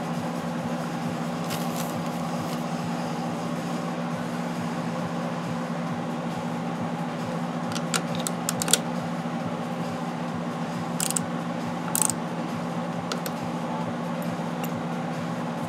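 Steady mechanical hum of a machine running in the workshop, with a handful of light clicks and taps from hand work on the motorcycle, grouped from about halfway through.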